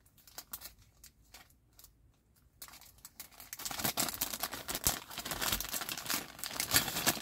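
Small clear plastic bag crinkling as fingers pull it open: a few soft crackles at first, then continuous crinkling from about two and a half seconds in.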